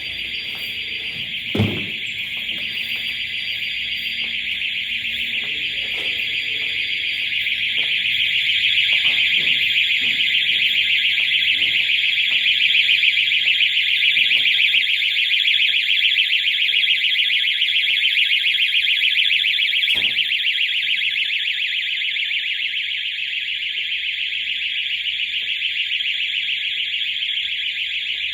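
BLUELINE active-threat alert alarm sounding a loud, steady, high electronic tone without a break, signalling a lockdown; it grows louder about eight seconds in. A single thump about a second and a half in.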